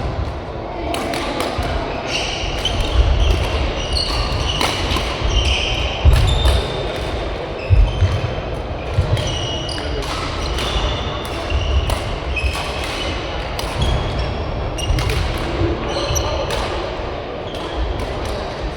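Badminton doubles play in a sports hall: sharp racket strikes on the shuttlecock, short high squeaks of court shoes on the floor and thudding footfalls, over and over, with the hall's echo.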